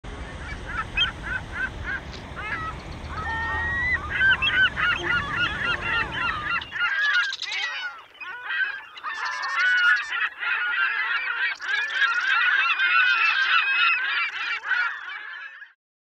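A flock of gulls squawking, with many short overlapping calls. A low rumble runs beneath the calls for the first seven seconds and then cuts off suddenly.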